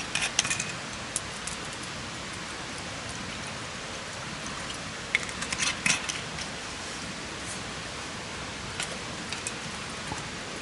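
Wood campfire crackling over a steady hiss, with sharp pops bunched near the start and again about halfway through, and a few lone ticks.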